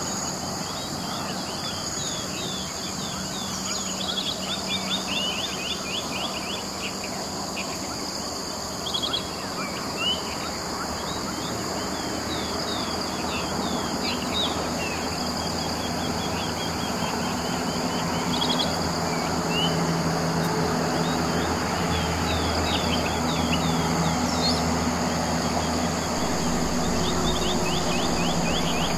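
Outdoor rural ambience: a steady high-pitched insect chorus, with frequent short bird chirps in quick runs. A low hum grows louder over the second half.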